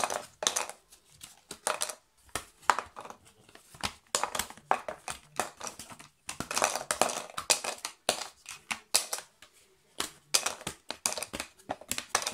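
Thick cardboard board-game maze tiles being pressed out of a punch-out sheet and laid down on the game board: a run of sharp clicks and taps, with a few longer scraping rustles of card.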